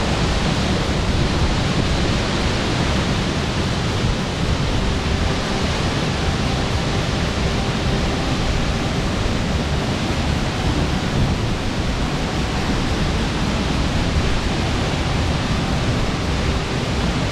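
Waterfall heard up close: a loud, steady rush of falling water that does not change.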